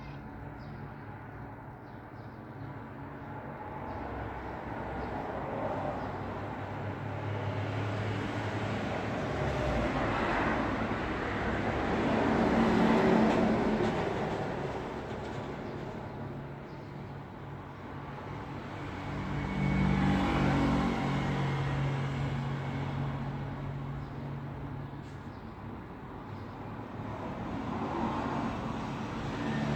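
Road traffic: vehicles passing one after another over a steady low engine hum, each one swelling and fading. The loudest pass comes about halfway through.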